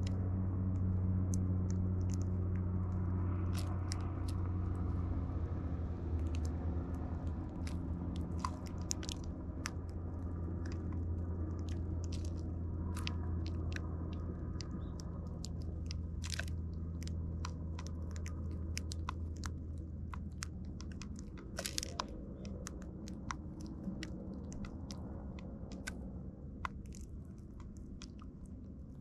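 Eurasian tree sparrows pecking and cracking seed in plastic feeding trays close to the microphone: irregular sharp clicks and crunches of beaks on seed and plastic. A steady low hum runs underneath and fades out after about twenty seconds.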